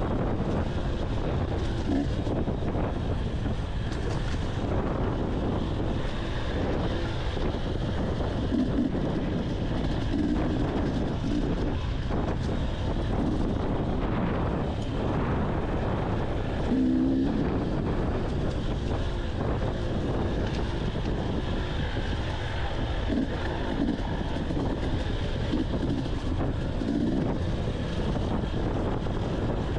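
Dirt bike engine running steadily while riding a trail, with brief revs several times as the throttle is worked. Wind noise on the microphone throughout.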